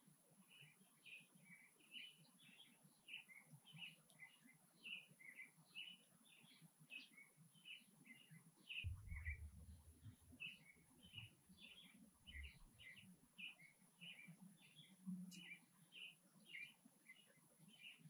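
Faint chirping of house sparrows: a steady run of short cheeps, two or three a second. A low rumble joins in about nine seconds in and lasts about three seconds.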